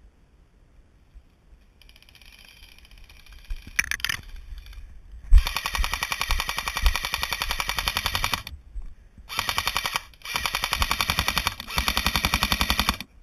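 AK-style airsoft electric rifle firing full-auto: four long bursts of rapid, evenly spaced shots with short pauses between them, the first burst the longest. Fainter rapid fire sounds in the first few seconds.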